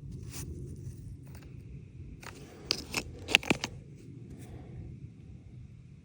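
Stones being handled: scraping and rustling, then a quick cluster of about five sharp clicks and knocks of rock on rock around the middle.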